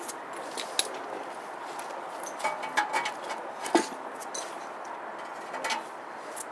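Irregular light metallic clinks and taps of tools and brake parts being handled, with a sharper knock a little before the four-second mark, over a steady hiss.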